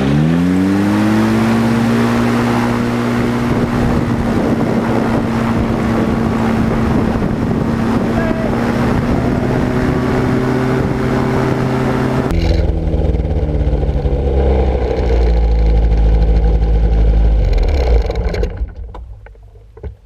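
Ultralight trike's engine and propeller: revved up briefly at the start, then running steadily at taxi power, with a slight rise in pitch near ten seconds. About twelve seconds in it turns duller, then slows with falling pitch and is shut down about eighteen seconds in.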